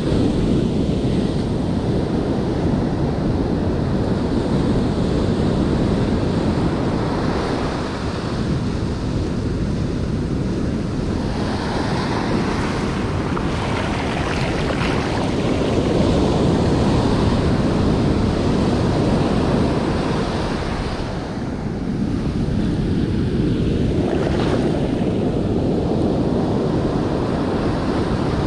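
Ocean surf breaking and foamy swash washing up a sandy beach, a continuous rushing that swells as waves come in, with wind buffeting the microphone.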